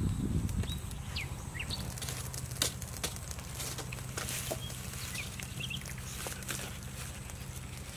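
Rural outdoor ambience: birds chirping briefly now and then over a low steady hum, with scattered light clicks and knocks from a knife cutting fish on a wooden chopping board.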